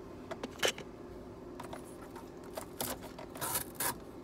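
Faint handling noises from hands at work: scattered clicks and short scraping rustles at irregular intervals. The sharpest click comes under a second in, and a couple of longer scrapes come near the end.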